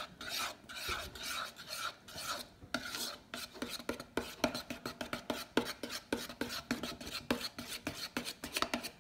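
A spoon scraping and stirring round a plastic bowl, mixing glue and contact-solution activator into clear slime. The strokes come about twice a second, then speed up about three seconds in to some four sharper scrapes a second.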